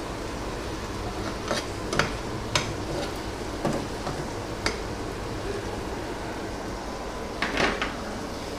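A metal utensil stirring sauce in a frying pan, with several sharp clinks and scrapes against the pan, the last cluster near the end, over a steady low hum.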